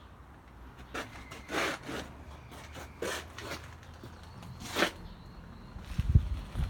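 Brief rubbing and scraping sounds, four short swishes a second or two apart, then a few low thumps near the end.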